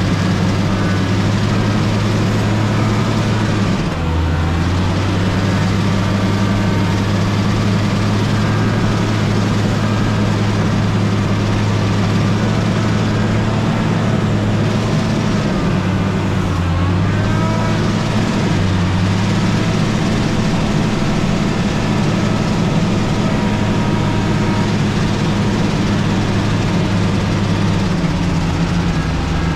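Motor grader's diesel engine running steadily with a deep hum, its pitch dipping briefly and recovering a few times.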